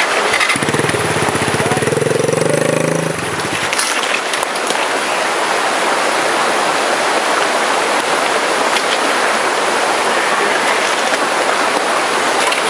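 Dirt bike engine running hard for about three seconds, then cutting out abruptly, over a steady rush of stream water.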